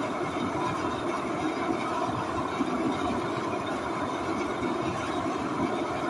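Large propane torch burning with a steady rushing noise, heating a 60-inch steel gear so it expands for a shrink fit onto its hub.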